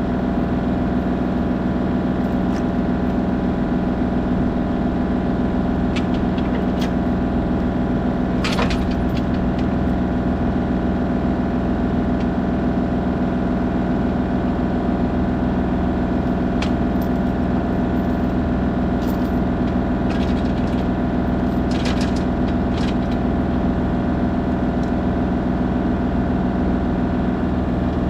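Diesel engine of heavy earthmoving equipment running at a steady speed, with a few brief light clinks about a third of the way in and again about three quarters of the way in.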